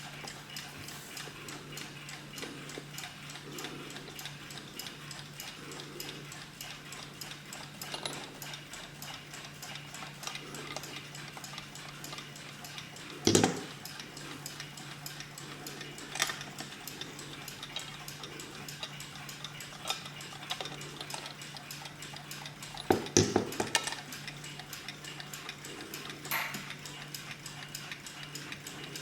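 Late-1920s PETER mantel alarm clock ticking steadily. A few louder, brief knocks cut across the ticking: the loudest comes about thirteen seconds in, with a cluster around twenty-three seconds.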